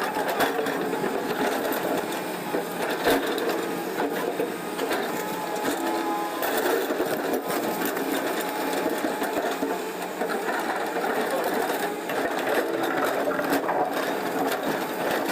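Excavator-mounted hydraulic breaker hammering, a rapid, steady mechanical rattle that keeps going without a break.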